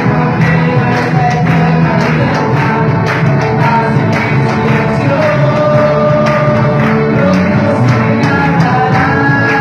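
A band playing a rock song, with a singer holding long notes over a steady drum beat.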